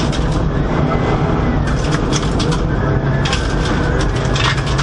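In-cabin sound of a Subaru Impreza WRX STI R4 rally car at full stage pace: the turbocharged flat-four engine running hard under load. Stones, ice and snow clatter against the underbody and wheel arches, about two seconds in and again from about three seconds on.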